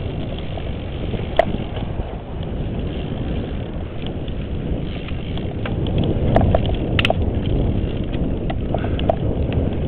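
Wind rushing over the microphone and the tyre rumble of a Cannondale mountain bike ridden along a rough path, with scattered clicks and rattles from the bike, sharpest a little over a second in and around seven seconds.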